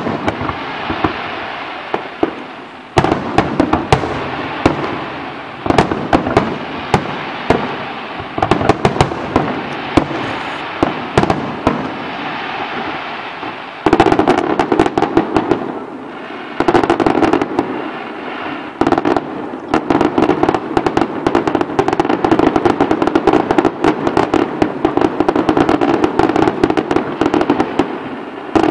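Fireworks display: a steady run of bangs and shell bursts with crackling, becoming louder and denser about halfway through.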